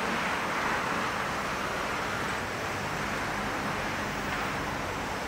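Boeing 747-400F's four turbofan engines running at low, steady thrust, heard from across the airfield as an even rushing jet noise.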